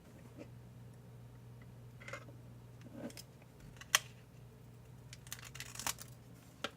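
Small plastic parts and packaging being handled: scattered clicks and short rustles, with one sharp click about four seconds in and a quick cluster of clicks a little later, over a low steady hum.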